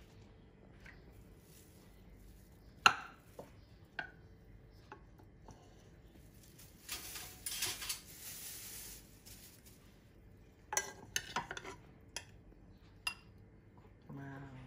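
Kitchen utensils knocking and scraping against a pot and a bowl as cooked chicken pieces are spooned out: a few sharp knocks, the loudest about three seconds in, a longer scraping stretch in the middle, and a quick run of clinks later on.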